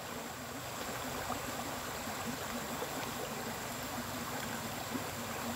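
Small stream's water flowing steadily.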